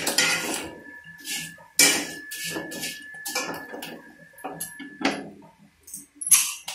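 A wire skimmer stirring and tossing crisp cornflakes in an iron kadai: an irregular run of metal scraping and clattering strokes against the pan, with the dry flakes rustling, the loudest strokes about two seconds in and near the end.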